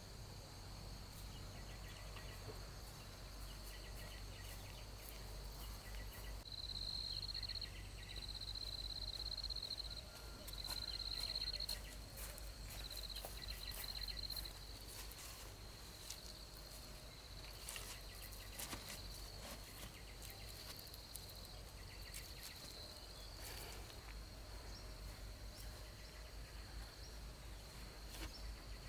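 Insects trilling outdoors: a steady high-pitched buzz, with louder pulsing trills in stretches from about a third of the way in to halfway. A few faint clicks or taps come later on.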